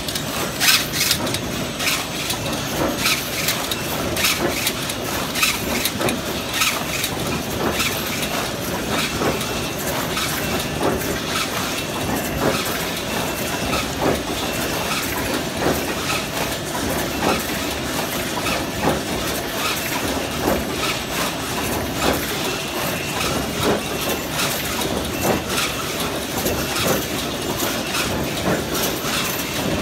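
Stainless steel wire mesh weaving machine running: a steady, rapid mechanical clatter of clicks and knocks.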